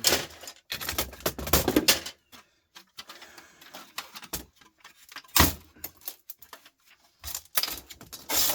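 Irregular clatter, clicks and knocks of plastic and metal parts being handled on a workbench during an electronics teardown, busiest at the start, with one sharp knock about five seconds in.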